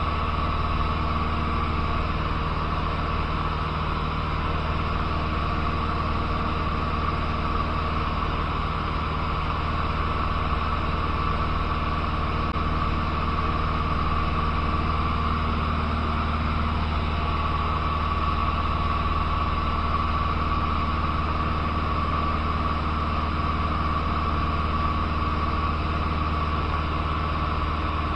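Cessna 150's Continental O-200 four-cylinder engine and propeller droning steadily in flight, heard inside the small cabin with wind noise over it. Pitch and level hold constant throughout.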